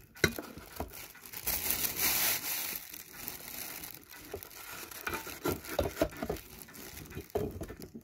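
Clear plastic bag crinkling and rustling as a ceiling fan's canopy and mounting bracket are handled in their packing, with short crackles, loudest for about a second near the start.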